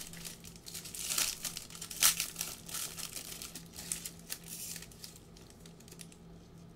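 Plastic trading-card pack wrapper crinkling and tearing as a pack of Panini Contenders basketball cards is ripped open and handled, in a string of crackly bursts that thin out after about five seconds.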